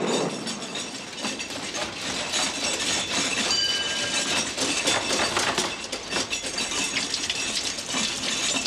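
Dishwasher making a constant clattering racket, crockery knocking and clinking inside it, with a few short metallic rings about halfway through; a noise likened to a tram running through the flat.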